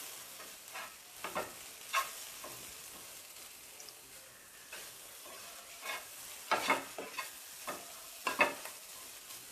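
A spatula stirring and scraping through thick onion-tomato masala mixed with spice powders in a frying pan, over a light steady sizzle. The scrapes come irregularly, several close together late on.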